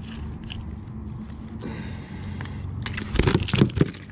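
A small bass flopping on a boat's floor: a quick run of loud, irregular thumps starting about three seconds in, over a low steady rumble.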